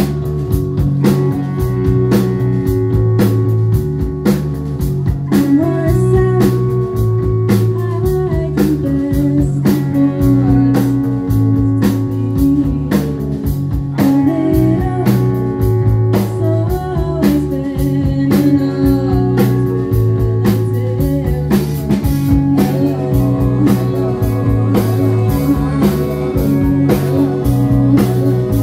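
Live band playing through a PA: electric guitars over a repeating bass line and a steady drum beat.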